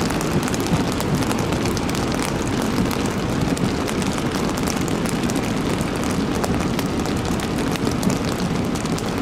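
Severe thunderstorm downpour with hail: a steady roar thick with sharp ticks of stones and drops striking.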